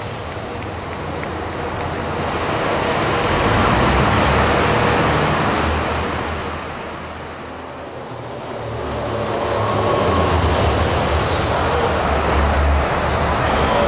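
Hot farm pulling-tractor engines running loudly: first a black International tractor's engine after its pull, then a red International tractor's engine at the starting line. The engine sound dips about halfway through and then swells again, with a faint falling whistle.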